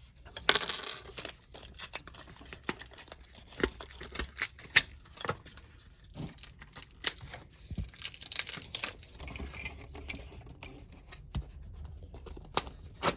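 Small objects handled on a counter: scattered clicks and knocks with rustling, and a short bright ring about half a second in.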